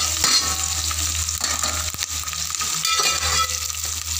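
Garlic, onions and freshly added chopped chillies sizzling in hot oil in a metal pot, stirred with a spatula that scrapes the pot now and then.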